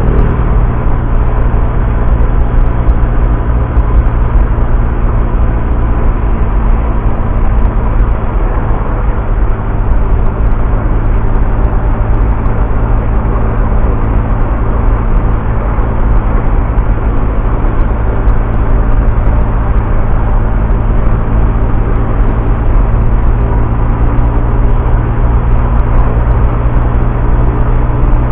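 Honda Vario scooter's single-cylinder engine running at a steady cruise, with heavy wind rush on the microphone making a loud, steady low rumble.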